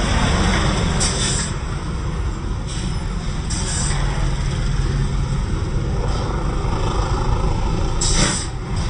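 Hino 500 diesel trucks rumbling past at low speed. Three short air-brake hisses are heard: about a second in, again a few seconds later, and the loudest near the end.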